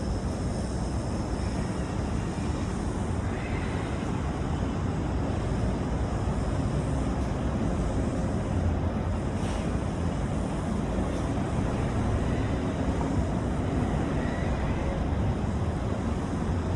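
Fishing boat under way: a steady low engine rumble mixed with rushing wind and water noise.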